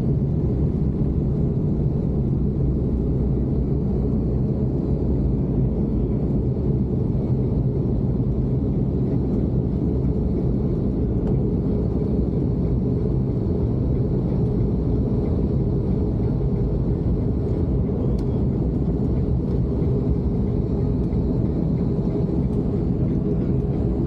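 Steady low drone of a turboprop airliner's engines and propellers, heard from inside the cabin as the aircraft rolls on the ground.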